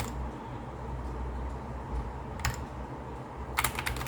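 Keystrokes on a SKYLOONG GK61 60% mechanical keyboard with Gateron Red switches. There is a single key click about two and a half seconds in, then a quick run of three or four clicks near the end, over a low steady hum.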